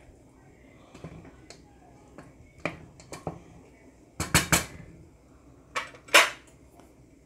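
A wooden spatula knocking and clattering against a non-stick cooking pot while stirring curry, a scatter of knocks with the loudest clatters about four seconds in and again about six seconds in.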